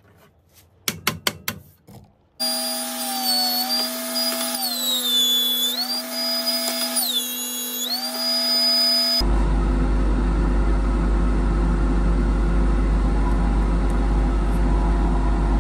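A few light knocks, then a benchtop jointer's motor whine starts abruptly. Its pitch dips and recovers twice. Later the sound switches abruptly to a steady low hum with a rushing noise.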